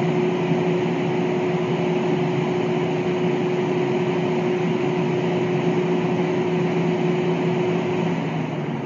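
Kintetsu 20000 series 'Raku' electric train car standing at the platform, its air conditioning and onboard electrical equipment running: a steady whooshing hum with two steady tones under it, which stop shortly before the end.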